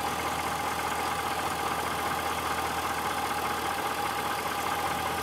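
2006 Chevrolet Silverado Z71's engine idling steadily at operating temperature, with an even hum and no knock or rattle standing out.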